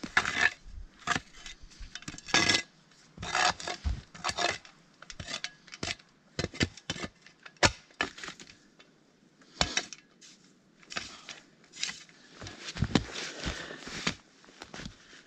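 Snow being scraped and brushed off a fallen log with a short-handled tool and by hand: an uneven run of swishes and scrapes with a few sharper knocks on the wood.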